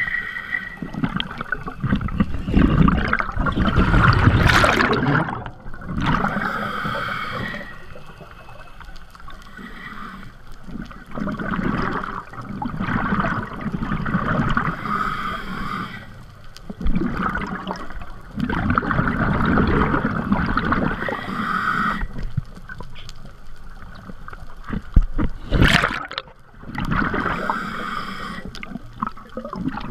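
Scuba diver breathing through a regulator underwater, heard through the camera housing. Loud gurgling bursts of exhaled bubbles come every few seconds, with quieter stretches of inhaling between them.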